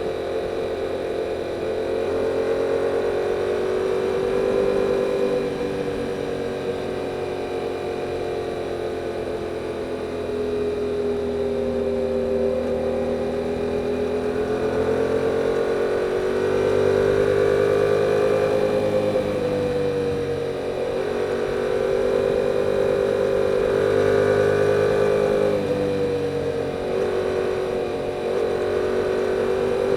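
2022 Yamaha R7's 689 cc parallel-twin engine on its stock exhaust, riding along at part throttle. Its note rises and falls gently with small throttle changes and dips briefly near the end.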